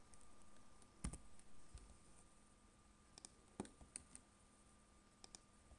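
A few faint, scattered clicks of computer keyboard keys over near-silent room tone, the strongest about a second in and again after about three and a half seconds.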